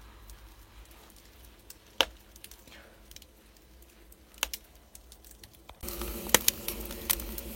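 Birch-wood fire crackling in a wood-fired oven: sparse sharp pops a couple of seconds apart. About 6 seconds in, a louder steady hum comes in under the pops.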